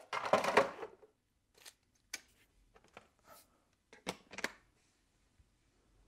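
Plastic and aluminium parts of a cordless stick vacuum being handled and clicked together during assembly: a short rustling scrape at first, then a few sharp clicks and knocks, two in quick succession about four seconds in.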